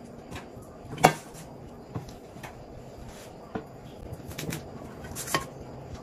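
Scattered kitchen knocks and clinks as greens are cut: a knife striking a cutting board and a metal bowl being handled, about four sharp hits, the loudest about a second in.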